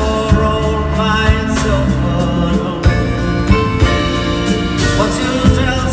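Live band music filmed from the audience: acoustic guitar and drum kit with singing, the drums keeping a steady beat.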